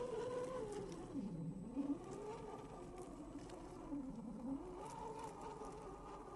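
Electric motor and gearbox of a Boomracing Defender 110 RC scale crawler whining steadily, the pitch dropping low twice as the truck bogs down under load on the climb and then rising again. Light crackle of the tyres over dry leaf litter.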